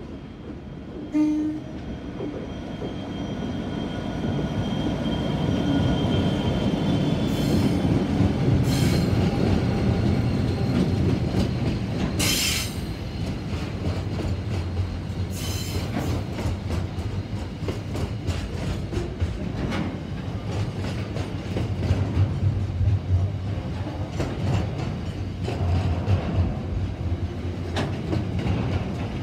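A diesel freight train passing: the 82 class locomotive's engine grows louder as it comes by, then a long string of container wagons rolls past with wheels clacking over rail joints and a few brief high wheel squeals. A short sharp tone sounds about a second in.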